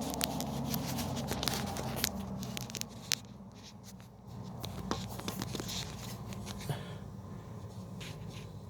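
Handling noise: scattered light clicks and scrapes over a low steady hum, a little louder in the first three seconds.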